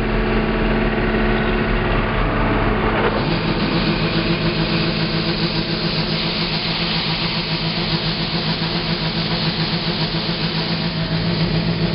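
Combine engine running steadily under load, and about three seconds in a steady rushing hiss comes in as the unloading auger runs and shelled corn pours from its spout into the grain truck's box.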